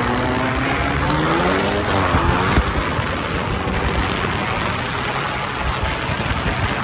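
A car drifting: its engine revs up and down over the first couple of seconds, then gives way to a steady rough rush of engine and sliding tyres as the car holds the slide.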